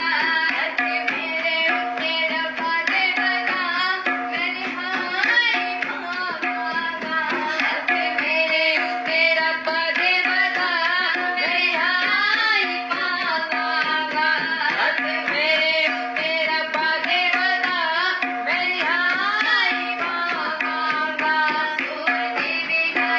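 Indian-style devotional worship music: tabla drumming and a gliding melody over a steady held drone.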